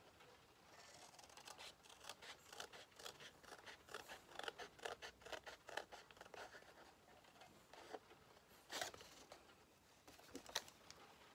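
Scissors snipping through a sheet of paper: a quick run of short snips for several seconds, then a couple of single, louder cuts near the end.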